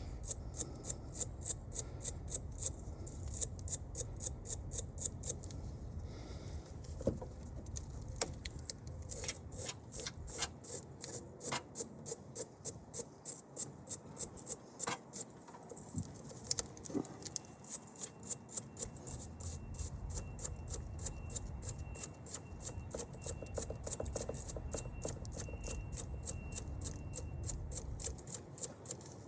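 Round wire brush scrubbed by hand over a corroded battery cable end, quick rasping strokes several a second to clean off the corrosion.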